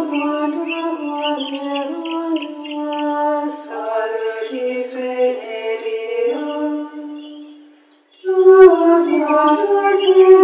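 Unaccompanied women's voices singing a slow chant melody on long held notes. The singing stops for about a second near the end, then starts again.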